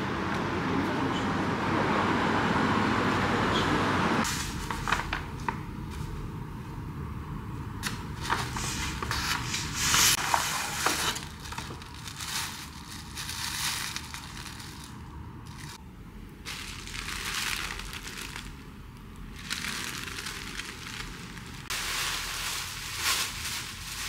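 Irregular rustling and crinkling of handled material in short, uneven bursts, after a steadier noise in the first four seconds.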